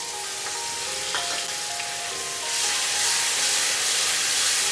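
Ginger-garlic paste and onions sizzling in hot mustard oil in a kadhai, the sizzle getting louder about halfway through.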